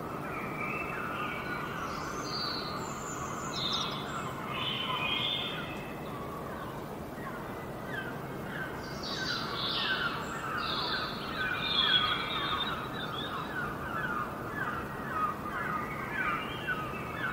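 Several 17-day-old kittens mewing and squeaking over one another, short high cries that come thick and fast through the second half.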